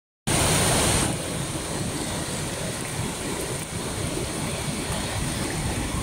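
Waterfall falling into a pool: a steady roar of water. It starts a moment in, a little louder for the first second, then holds steady.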